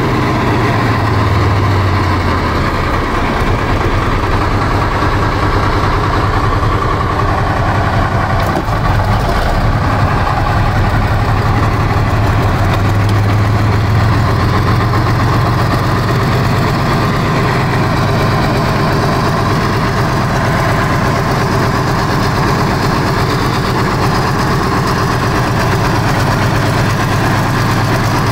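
T-34/85 tank's V-2 V12 diesel engine running steadily at low revs as the tank moves slowly across pavement, with a strong low rumble.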